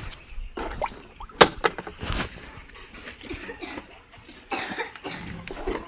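A water container being handled before pouring, giving a few sharp knocks and clunks, the loudest about a second and a half in, then a short rough burst near the end.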